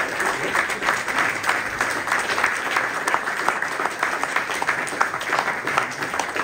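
Audience of a roomful of people applauding, a steady wash of many hands clapping.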